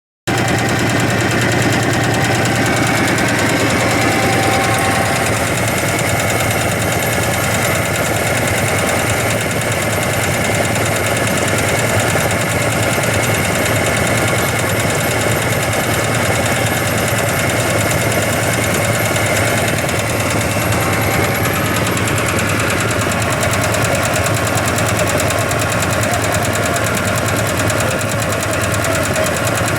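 Diesel engine of a hand tractor running at a steady idle with a fast, even knock. The sound cuts in sharply just after the start.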